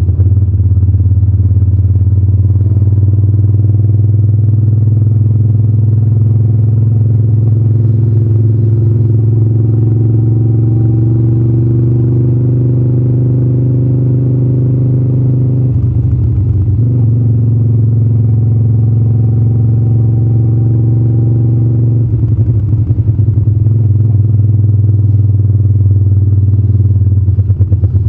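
Moto Guzzi California 1400 Custom's air-cooled transverse V-twin running under way, its pitch rising slowly. About sixteen seconds in the sound breaks off briefly and picks up again lower, as at a gear change, and near the end it drops to a slow, uneven throb as the bike slows.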